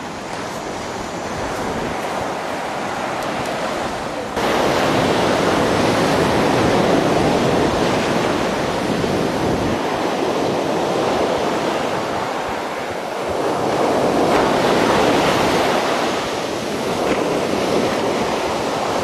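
Ocean surf breaking on the beach as a steady rush of noise that swells and eases, with wind buffeting the microphone. The noise jumps suddenly louder about four seconds in.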